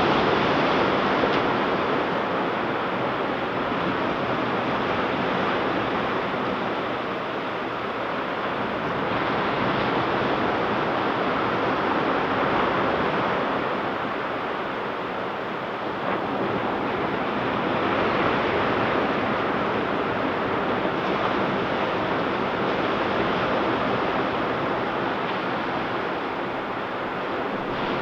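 Ocean surf breaking and washing up a beach: a continuous hiss of waves that swells and eases every several seconds.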